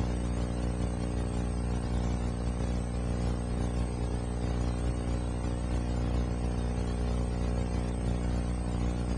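A steady low hum made of many even tones, strongest in the bass, with a hiss above it. It stays the same level throughout, with no knocks or changes.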